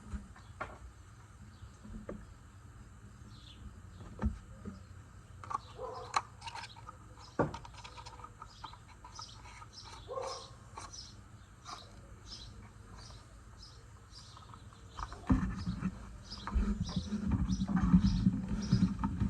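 Birds chirping in the background, with scattered clicks and knocks of tools and parts being handled during an oil change. The handling grows louder and busier, with clattering knocks, for the last few seconds.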